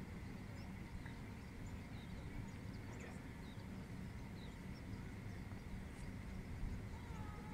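Small birds giving faint, scattered short chirps over a steady low rumble of outdoor background noise.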